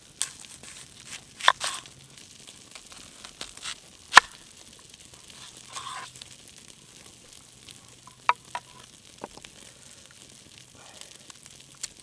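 Flour-and-water batter being stirred by hand, with scattered sharp clicks and knocks from the utensil against its container, the loudest about four seconds in, over a faint steady sizzle and crackle from the campfire.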